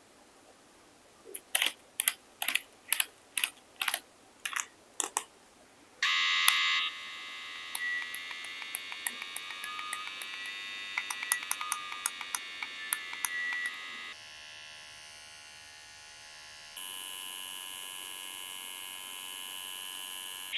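A run of about a dozen sharp clicks, then, about six seconds in, the Ambition Soldier wireless rotary tattoo pen's coreless motor starts running with a steady electric whirr. The whirr changes tone twice in the last few seconds.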